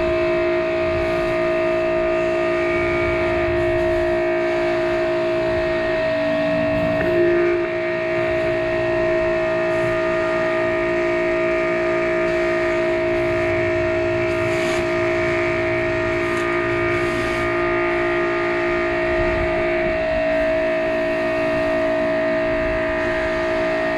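Ryobi 2000 psi electric pressure washer running under load with a steady whine, over the hiss of the water spray; the lower note of the whine shifts a few times.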